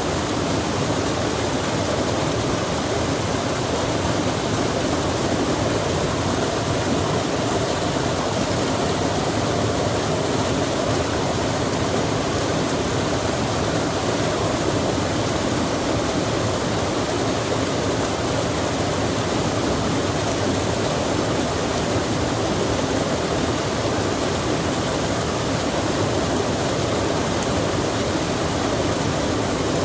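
Steady, even rushing of flowing water, unchanging throughout, with no separate sounds standing out.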